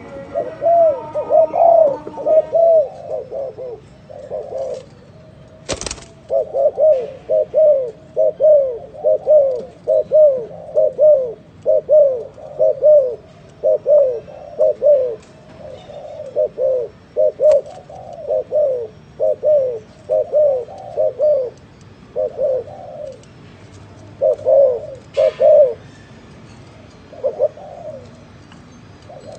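Spotted dove giving a long series of short, arched 'gù' coos, about one or two a second, with a brief pause early on. There is one sharp click about six seconds in.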